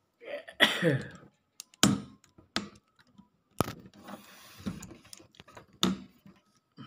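Cardboard box being pulled open by hand: the flaps knock and scrape in a series of sharp, irregular clicks and thumps, with rustling of the packaging inside.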